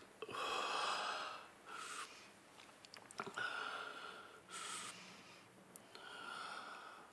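A man breathing heavily: about five separate long breaths in and out, with gaps between them and a small click near the middle.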